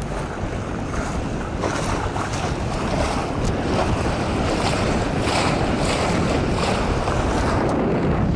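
Water rushing and splashing along the hull of a sailing yacht under way, with wind buffeting the microphone, and a few brief louder splashes.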